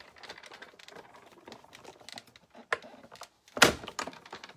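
Manual die-cutting machine being cranked, feeding its cutting plates and a stitched-edge die through with a rapid run of small clicks. A loud clack comes about three and a half seconds in.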